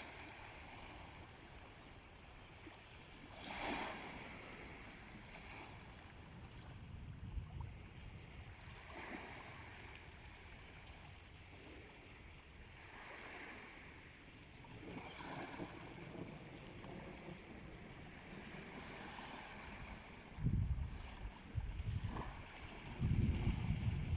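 Small sea waves washing in on the shore, swelling and fading every few seconds, with low rumbling gusts of wind on the microphone near the end.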